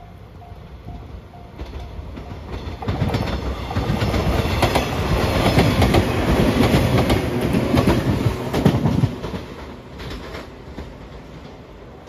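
JR 115-series electric train passing close by, its wheels clacking over the rail joints. It is loudest from about three to nine seconds in, then fades as it runs away. A level-crossing warning bell dings at the start.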